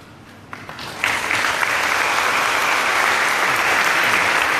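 Audience applauding: a few scattered claps about half a second in, then full, steady applause from about a second in.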